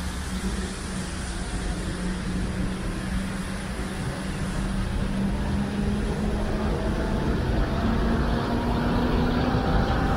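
Articulated city bus running as it drives toward and past, its engine a steady low hum that rises slightly in pitch and grows louder near the end. Under it is a steady hiss from the wet street.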